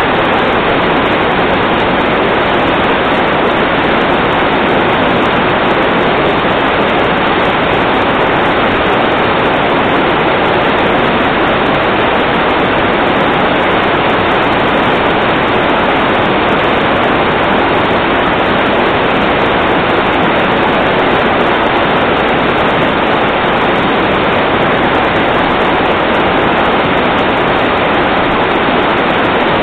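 Loud, steady rush of floodwater, an unbroken even wash of noise with no distinct splashes or knocks.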